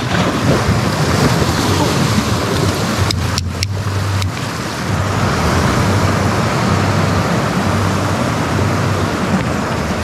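Sea surf washing in steadily, with wind rumbling on the microphone in gusts.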